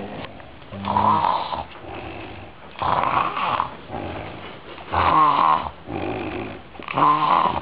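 Heavy snoring: four loud snores about two seconds apart, each with quieter breathing between.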